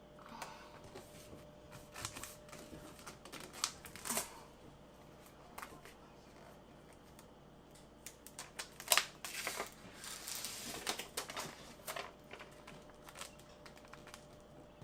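Scattered light taps and clicks with crinkling rustle as peel-and-stick vinyl backsplash tiles are handled, repositioned and pressed onto the wall, with a busier run of clicks and rustling about two-thirds of the way through.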